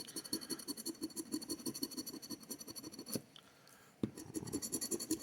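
A scratch-off lottery ticket being scratched in quick back-and-forth strokes, about six a second. The strokes stop just after three seconds in and start again about a second later.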